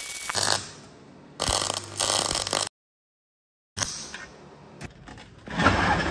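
MIG welder arcing on steel in short bursts: a harsh crackle with a low hum under it, the arc struck and stopped several times. The sound cuts out completely for about a second just before the middle.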